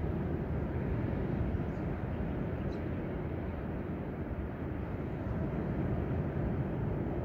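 Steady low rumble of ocean surf breaking on a beach.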